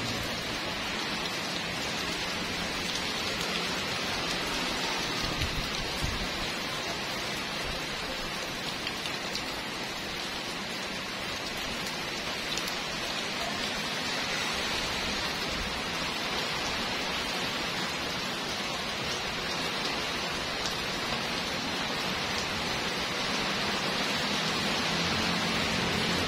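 Pouring rain falling on brick paving and parked cars: a dense, steady hiss without a break.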